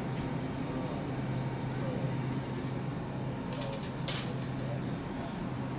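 Steady supermarket background hum, with a short metallic jingle about three and a half seconds in and another just after four seconds.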